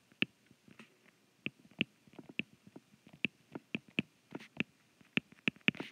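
Stylus tip clicking against a tablet screen while handwriting notes: a string of sharp, irregular clicks, about three a second.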